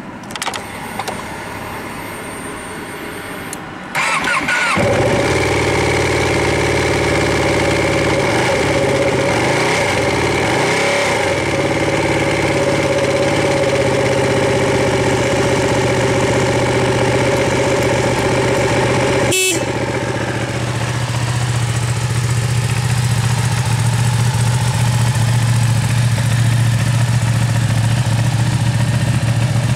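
Ducati 959 Panigale's Superquadro L-twin on its stock exhaust. After a few seconds of a thin high whine with the ignition on, the engine is started about four seconds in and settles into a steady idle. There is a brief break about two-thirds of the way through.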